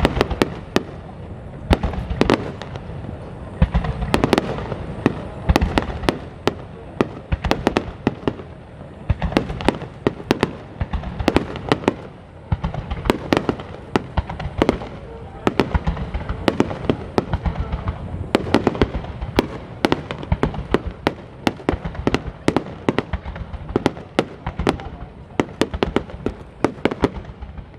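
Fireworks going off in rapid succession: many sharp bangs a second, with a low rumble between them.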